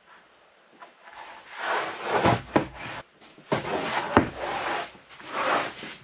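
Rough-sawn wooden boards sliding and scraping against each other and the sawhorses as they are shifted, in three long scraping passes with a few sharp wood-on-wood knocks.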